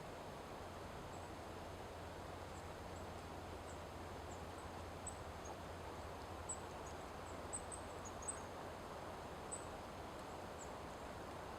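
Eurasian treecreeper giving thin, very high-pitched call notes: many short separate chips, a few louder ones around the middle, over a steady low background noise.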